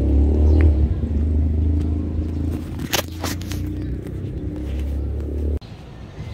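Vehicle engine running steadily with a low rumble, with a couple of short scraping clicks about three seconds in. It cuts off suddenly near the end, leaving a quieter outdoor background.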